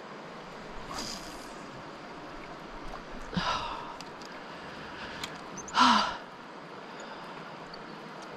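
A person breathing out heavily: three breathy sighs or exhales about two and a half seconds apart, the last the loudest, over a steady background hiss.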